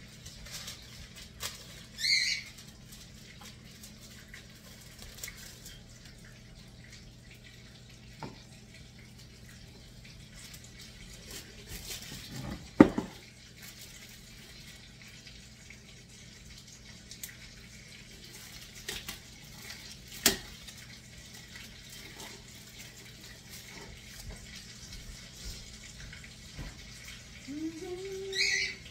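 Kitchen work sounds over a steady low hum: scattered clicks and clinks of cookware, one loud knock about 13 s in and a sharp click about 20 s in, with short high squeaks near the start and near the end.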